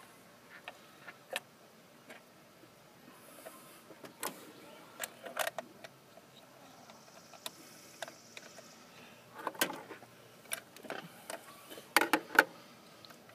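Scattered clicks, taps and light knocks of hand tools and hard plastic parts being handled while an accelerator pedal position sensor assembly is fitted, with a quick run of metallic clicks from a socket near the end.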